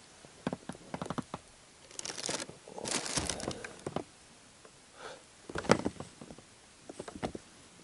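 Handling noises as a small pike is landed: scattered clicks and short rustling and scraping sounds, the loudest a brief burst a little before six seconds.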